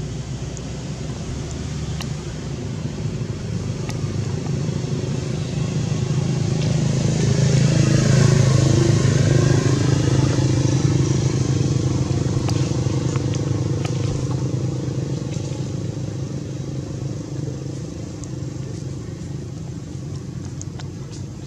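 A motor vehicle's engine passing by: a steady hum that grows louder to a peak about eight seconds in, dips in pitch as it passes, then slowly fades.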